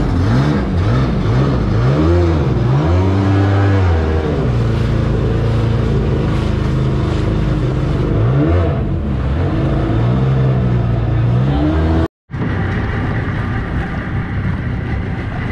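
Seadoo Rotax 578 two-stroke twin in a mini jet-drive jon boat revving hard, its pitch swooping up and down again and again as the boat runs and turns. About twelve seconds in it cuts off for a moment, and after that the sound is steadier, without the swoops.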